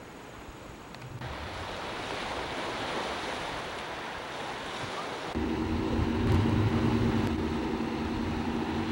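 Waves washing on a rocky shore with wind on the microphone. About five seconds in it changes abruptly to surf on a beach, louder, with a steady low hum underneath.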